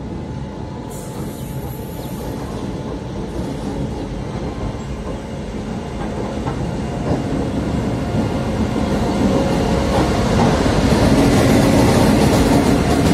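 WAP-7 electric locomotive approaching along a station platform and passing close by. The rumble of its wheels on the rails grows steadily louder and is loudest near the end.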